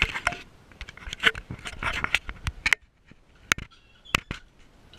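Scattered knocks, scrapes and clicks of movement and handling, with a few sharp, isolated taps late on.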